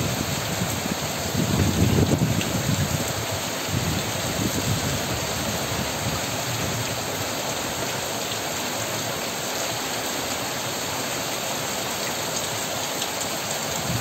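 Heavy rain pouring down steadily on trees and a yard, a little louder in the first three seconds.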